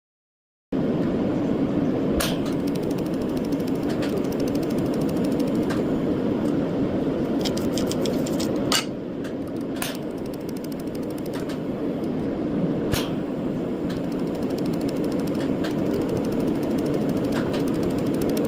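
Jewellery laser welder at work: a steady low machine hum from its cooling fan, with sharp ticks from the laser pulses at irregular intervals, a quick run of them about halfway through.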